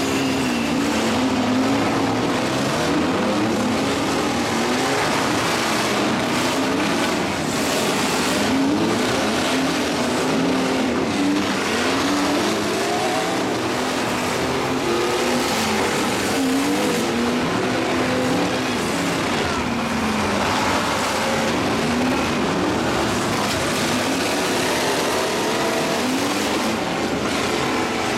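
Several demolition derby trucks' engines revving up and down at once, their pitches rising and falling against each other over a steady wash of noise.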